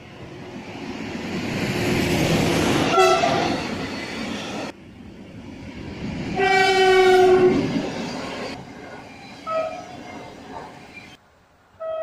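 A train passing with a rising rumble and wheel clatter, its horn giving a short blast about three seconds in and then a longer blast of about a second and a half near the middle. This is the Rp1 'baczność' (attention) warning signal of Polish railways.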